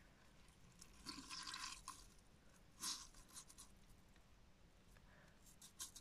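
Laundry being pulled out of a front-loading washing machine's drum: faint rustling of cloth, with a longer rustle about a second in and a short one near three seconds.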